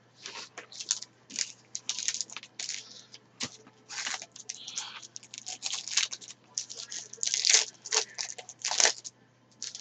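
Foil trading-card pack wrapper crinkling and being torn open by hand: a close, irregular run of crackles and rustles.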